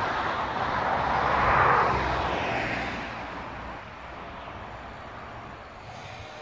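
Noise of a passing vehicle, swelling about a second and a half in and fading away after about three seconds to a lower steady background.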